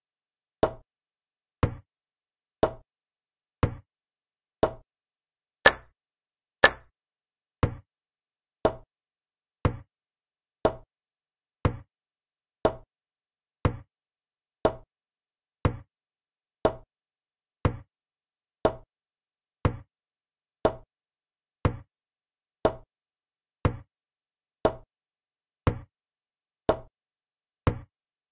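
Chess-board move sound effect: a sharp wooden-sounding click about once a second as each move is played, with two louder clicks about six seconds in, where consecutive captures fall in the move list.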